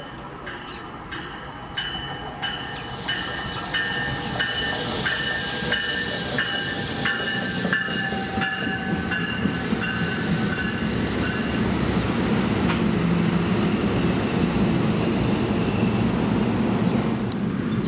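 A train approaching and passing along the track: evenly spaced clicks from the rails grow louder, then give way to a steady, rising rush and rumble as the train goes by.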